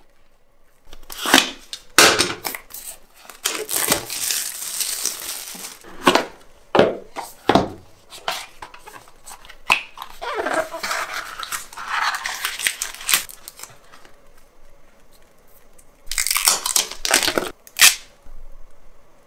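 Smartphone packaging being opened by hand: plastic film and card tearing and crinkling, with sharp clicks and rustles. A long tearing sound comes a few seconds in, rustling follows midway, and a last flurry of crinkles comes near the end.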